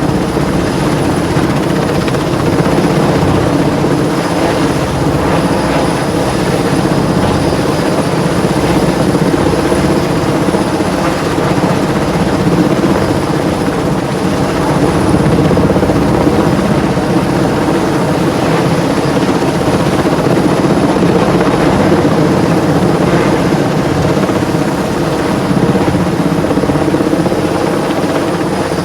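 Helicopter running loud and steady, the rotor and engine drone carrying a thin, steady high whine above it.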